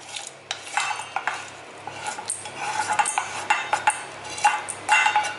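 A kitchen utensil scraping and knocking against a frying pan as a fried onion-and-lentil tempering is scraped out into a steel bowl of flour, in a string of irregular scrapes and clinks.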